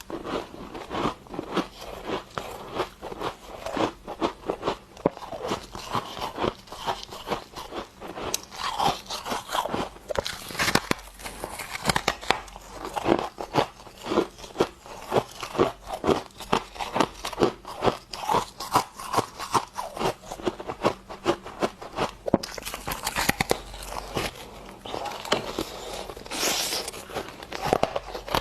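Freezer frost being bitten and chewed: a dense run of sharp crunches and crackles, several a second, going on without a break.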